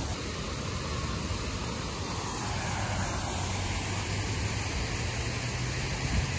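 Steady outdoor background noise: an even rushing haze with a low rumble underneath and no distinct events.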